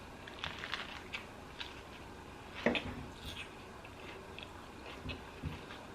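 A person chewing a lettuce-wrapped salami and fresh mozzarella sandwich: soft, wet mouth clicks and squishes, with one louder smack about two and a half seconds in.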